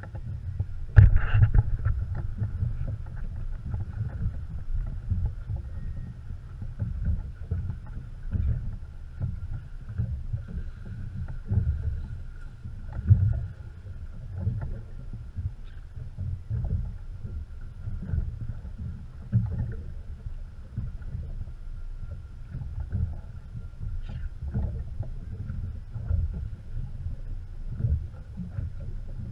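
Water slapping against a small aluminium boat's hull in a choppy sea, an uneven low rumble that rises and falls, with a sharp knock about a second in and smaller knocks scattered through.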